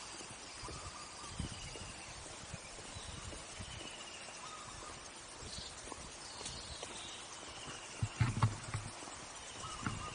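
Footsteps on a forest trail, soft thuds about once a second with a louder cluster about eight seconds in, while birds call over and over in short high phrases.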